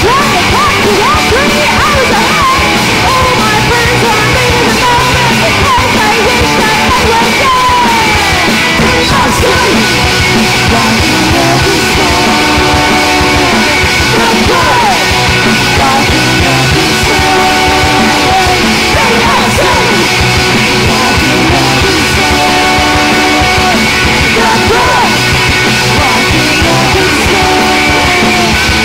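Punk rock band playing live: electric guitars and bass, with a woman singing lead over them.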